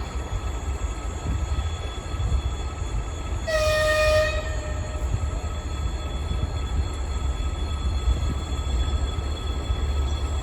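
Freight train running with a steady low rumble. About three and a half seconds in, its locomotive gives one short horn blast, lasting under a second, that sags slightly in pitch as it ends.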